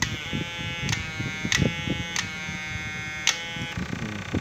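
Homemade 12 V electrofishing inverter running at its strong setting: a steady electric buzz with many overtones, broken by sharp clicks every half-second to second. The buzz's tone shifts slightly near the end.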